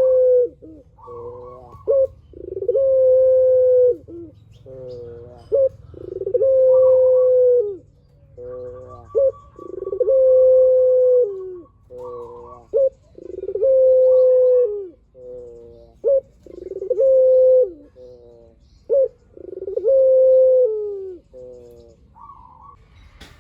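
Burung puter (Barbary dove) cooing in its long-voiced song: each phrase is a quick rolling stutter followed by one long, steady coo that drops in pitch at the end, repeated about every three and a half seconds, six times over.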